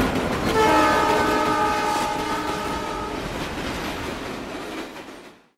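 A train running with its horn sounding one long steady chord from about half a second in to about three seconds in, over the noise of the moving train, which fades out at the end.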